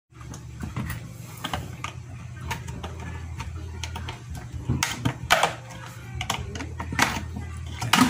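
Plastic clicks and scraping as a small screwdriver pries open the snap-fit bottom cover of an Asahi AK173 electric kettle. Several sharper clicks come in the second half, as the cover is unclipped and lifted off.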